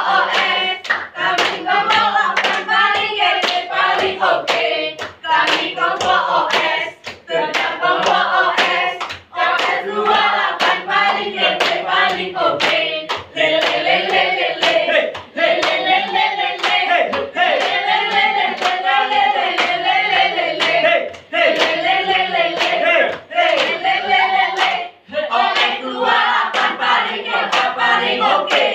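A group of young voices singing a yel-yel cheer together, with sharp hand claps on a steady beat.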